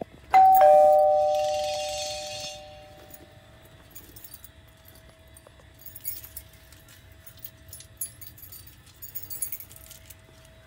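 Two-note doorbell chime: a higher note then a lower one, ringing once about a third of a second in and fading away over about three seconds. A few faint clicks follow.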